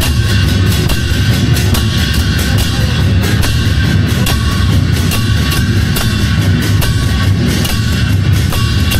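A drum troupe's big barrel drums and hand-held cymbals played together in a loud, dense, unbroken rhythm, with the cymbals ringing over the drum beats.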